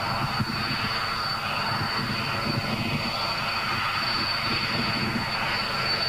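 Jet aircraft engine noise: a steady rushing roar with a constant high whine, slowly growing louder.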